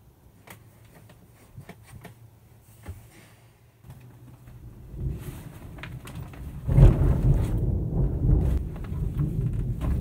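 Loud thunder: a low rumble builds from about four seconds in, then a sudden loud crash about seven seconds in that rolls on as a deep rumble.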